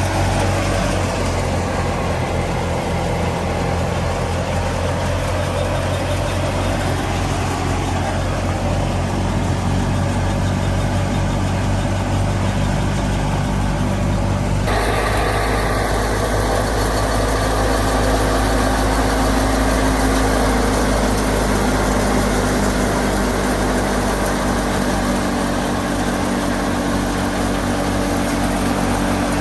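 Fiat 480 tractor's diesel engine running steadily while driving a wheat thresher, together with the thresher's whirring machinery. The tone shifts abruptly about halfway through.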